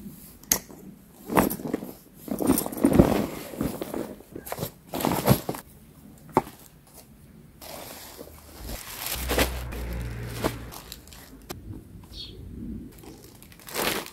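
Plastic packaging and a fabric carry bag being handled while an inflatable kayak is unpacked: irregular rustling and crinkling with scattered knocks and scuffs.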